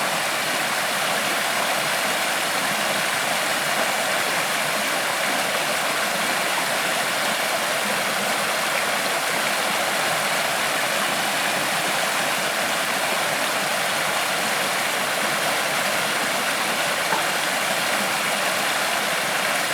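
Creek water flowing over rocks: a steady, even rushing.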